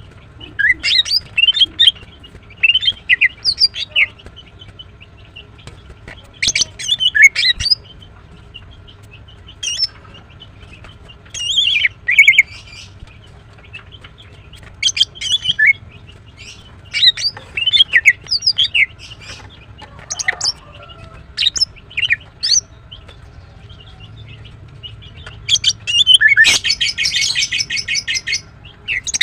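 Female greater green leafbird (Chloropsis sonnerati) calling in short, sharp chirping phrases, then a fast run of evenly repeated notes near the end. The keeper presents these as calls of a female in breeding condition calling to males.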